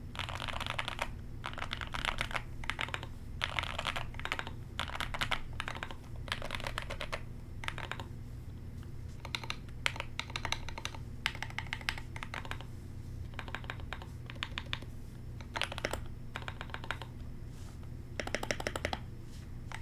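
A tape-modded keyboard being typed on in bursts of quick keystrokes with short pauses between them, over a steady low hum.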